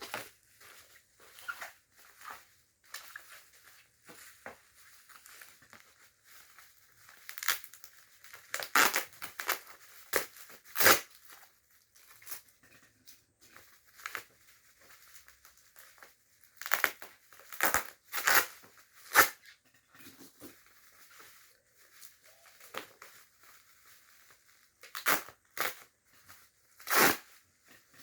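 Bubble wrap and plastic packaging being pulled off and handled, crinkling and tearing in irregular bursts, with several louder crackles.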